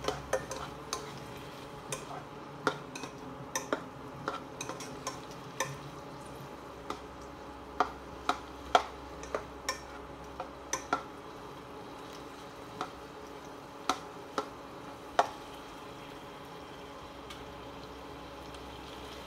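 Silicone spatula stirring chicken strips and onions in a nonstick frying pan: irregular taps and knocks against the pan for about fifteen seconds, then stopping, over a faint steady sizzle of the food frying.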